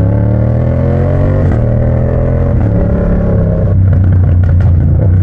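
Yamaha MT-07's 689 cc parallel-twin engine through a straight-pipe exhaust, accelerating under load: the pitch climbs, cuts briefly about a second and a half in as it shifts up a gear, and climbs again before settling lower near the end.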